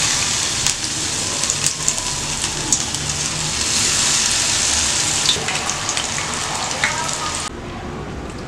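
Batter-coated baby corn pieces deep-frying in hot oil in a steel kadai: a steady sizzle with scattered small pops. It cuts off abruptly near the end.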